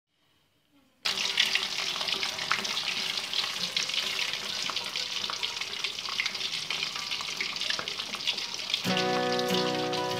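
Whole Indian mackerel (ikan kembung) frying in hot oil in a wok: steady sizzling with many small crackles, starting suddenly about a second in. Background music with sustained notes comes in near the end.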